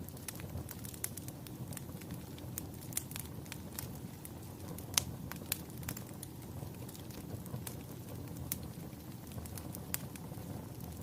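Fire crackling: irregular sharp pops and snaps over a low, steady rumble of the flames, the loudest pop about five seconds in.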